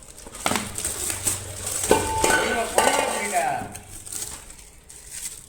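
Mixer-grinder jars, lids and parts clinking and knocking together as they are handled and set down, with one brief metallic ring about two seconds in.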